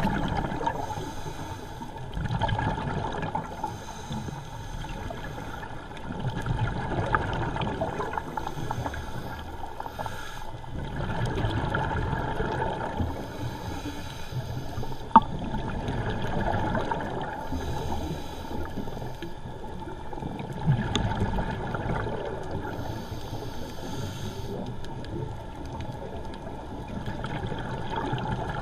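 A scuba diver's regulator breathing, heard underwater: a hiss on each inhale alternating with bubbling exhales, about one breath every four seconds. A single sharp click comes about halfway through.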